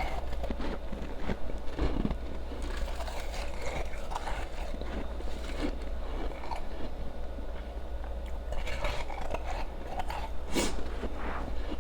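Close-miked ice being bitten and chewed: irregular wet crunches and crackles of ice between teeth, with one sharp, loud crunch near the end.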